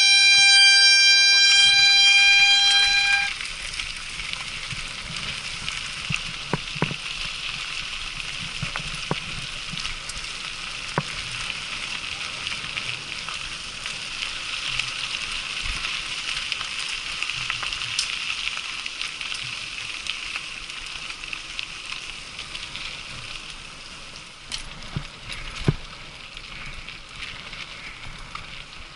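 A horn sounds one steady, loud note and cuts off about three seconds in. After it comes a steady high hiss with scattered sharp clicks.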